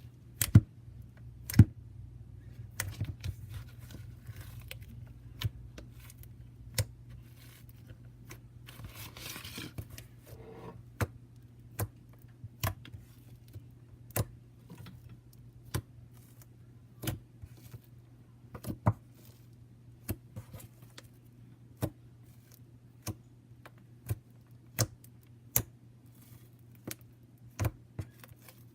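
Slime being poked, giving sharp, short pops and clicks at irregular intervals of about one to one and a half seconds, two loudest near the start, over a steady low hum. A brief rustling noise about nine seconds in.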